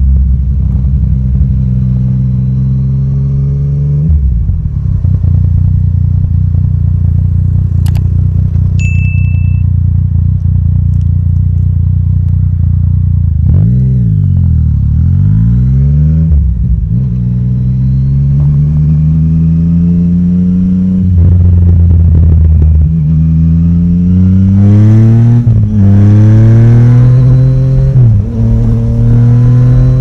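Yamaha Tracer 900 GT's three-cylinder engine through an Akrapovic exhaust, on a Woolich dyno tune, heard from the rider's seat while riding. It cruises steadily, slows and picks up again about halfway through, then accelerates hard through the gears with rising revs broken by quick shifts. A brief high beep sounds about nine seconds in.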